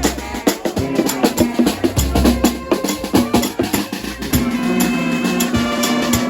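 Loud music with a steady drum-kit beat and deep bass notes; a held note comes in about four seconds in.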